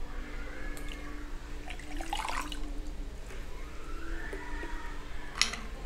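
Orange juice poured from a small bottle into a stainless-steel jigger and tipped over ice into a glass, liquid splashing and running, with one sharp clink near the end.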